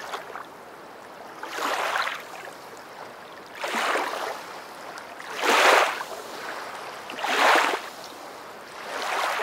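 Small waves lapping on a pebbly lakeshore, washing in about every two seconds.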